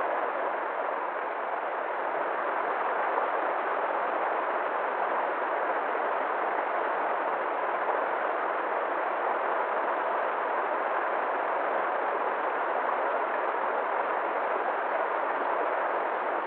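River water flowing in a steady, unbroken rush, with no rises or breaks.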